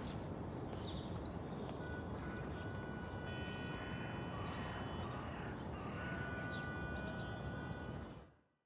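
Outdoor ambience: a steady low background rumble with many birds chirping and tweeting over it, all fading out near the end.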